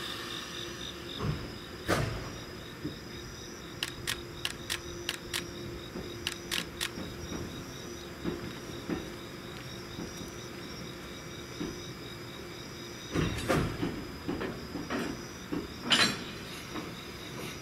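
Electric train creeping slowly past, its wheels giving sharp clicks and knocks over rail joints in irregular runs: a quick series of clicks a few seconds in, a cluster later on and the loudest knock near the end. Crickets chirp steadily underneath.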